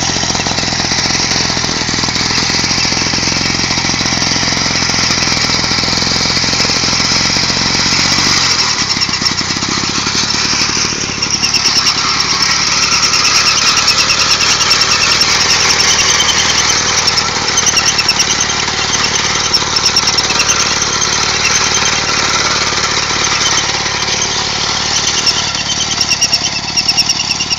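Small engine of a Rotax-powered walk-behind mower running steadily under load while cutting through tall grass, with a high, shrill layer over the engine note. The engine note drops and changes about eight seconds in.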